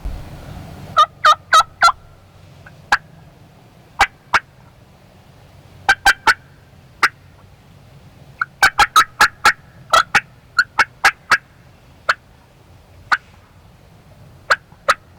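Turkey yelps and clucks: short, sharp notes, some single and some in quick runs of three to five, with a longer fast run in the middle.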